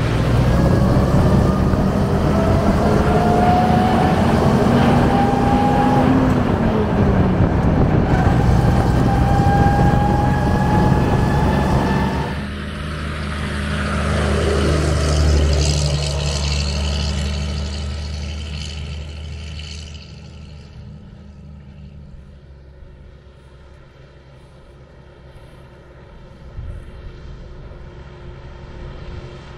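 1945 Mack NO 7.5-ton prime mover driving on the road. For about the first twelve seconds its engine runs under load with a whine that climbs in pitch as the truck gathers speed; the pitch drops about six seconds in, a gear change, then climbs again. After an abrupt change the engine is heard from the roadside, swelling around fifteen seconds, fading, then growing again near the end as the truck approaches.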